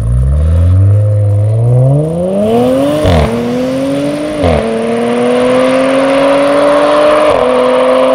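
Audi RS5 B9's twin-turbo V6, tuned to 540 PS and fitted with an aftermarket sports exhaust, accelerating hard through the gears. The engine note climbs, then drops at an upshift about three seconds in, again about a second and a half later, and once more near the end.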